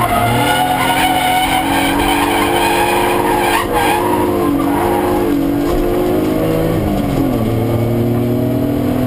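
BMW E36 323ti Compact's 2.5-litre straight-six heard from inside the cabin, running hard on a track. The engine pitch wavers in the middle, drops briefly about seven seconds in, then climbs steadily.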